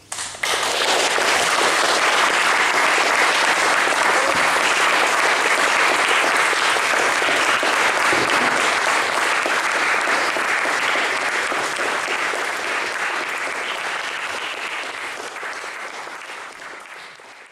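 Audience applauding, breaking out suddenly and then dying away gradually over the last several seconds.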